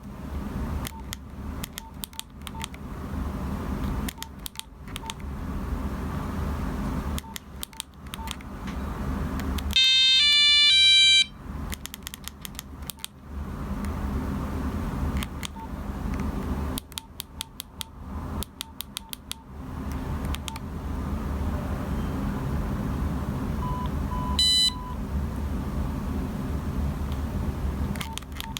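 Nokia 3395 mobile phone giving electronic beeps. About ten seconds in, a loud run of stepped tones lasts about a second and a half. Near the end come three short beeps and another brief tone, all over a low steady hum with repeated clicking.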